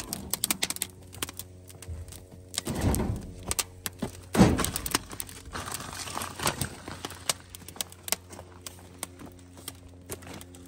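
Wood fire crackling in the firebox of a sheet-metal sap evaporator stove: quick, irregular pops and snaps, with two louder muffled rushes about three seconds in and again a second and a half later.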